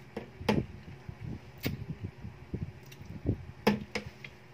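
Wet mouth sounds of a woman biting and sucking on a lemon wedge close to the microphone: a string of short smacks and slurps, the sharpest about half a second in and near the end.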